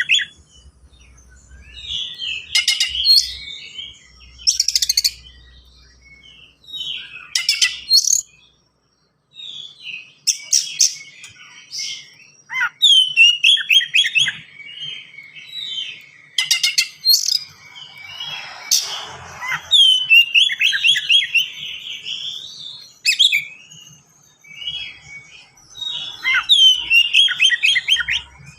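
Oriental magpie-robin (kacer) singing a fast, dense song of rapid trills and sharp sweeping notes, delivered in phrases a second or two long with short pauses between them.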